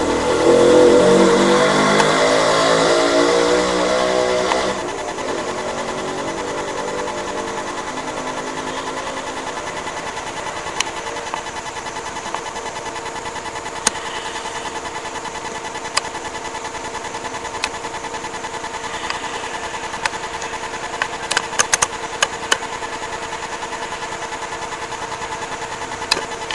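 Dog snoring: a steady, rattling drone with a fast flutter, louder for about the first five seconds and then even, with a few faint clicks in the later part.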